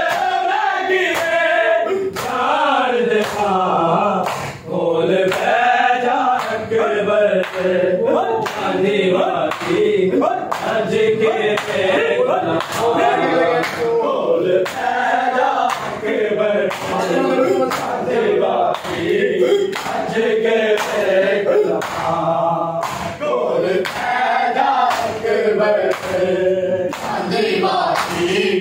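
A group of men chanting a noha (Muharram lament) in unison, with the steady beat of open hands slapping bare chests in matam.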